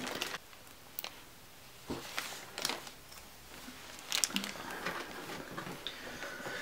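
Faint, scattered rustling and light clicks of plastic packaging being handled while a figure is unwrapped.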